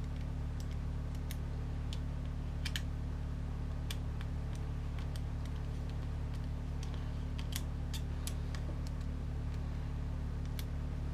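Scattered light clicks and ticks of small plastic RC-crawler parts and a screwdriver being handled while screws are driven into the plastic transmission. A steady low hum runs underneath.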